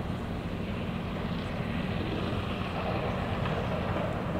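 Steady low engine drone of ships passing on the river, with a rushing noise over it that swells a little about three seconds in.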